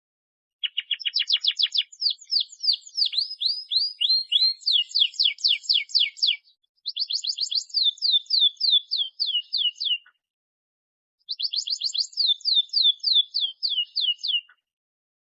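Domestic canary singing in three fast trilling phrases with short pauses between them. Each phrase is a rapid run of repeated notes, some of them quick downward sweeps.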